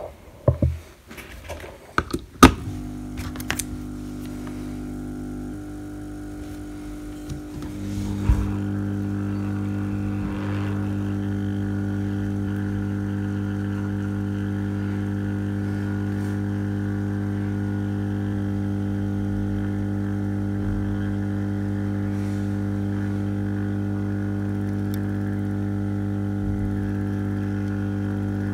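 A few sharp clicks and knocks, then a hot-air rework station's blower starts with a steady hum, which changes pitch and grows louder about eight seconds in and then holds steady. The hot air is melting solder to seat a small chip on a TV mainboard.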